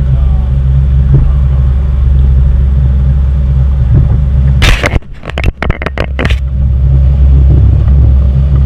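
Boat engine running steadily under way, a loud low drone. About halfway the drone is broken by a sharp burst of crackling and drops out for under two seconds before coming back.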